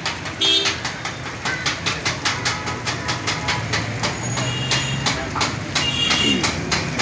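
Rapid, uneven clattering of metal utensils on a steel street-food griddle, several strikes a second, over a steady background of frying and street noise.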